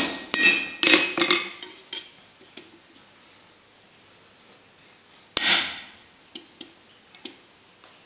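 Hammer blows on a slitting punch driven into a hot steel bar on an anvil, metal ringing on metal: the last two of a quick series near the start, then a pause with light clinks of steel on the anvil and one more sharp strike about five seconds in.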